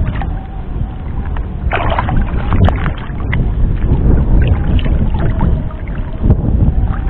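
Water sloshing and splashing around a wading angler as he handles a keep net with a tilapia in it, with a louder splash about two seconds in.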